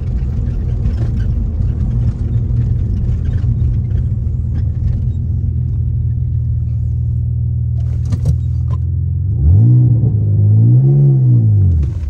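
Mitsubishi 3000GT VR4's twin-turbo V6 engine running steadily while the car moves. About nine and a half seconds in it gets louder and its pitch climbs, dips briefly, climbs again and falls away near the end as it is accelerated.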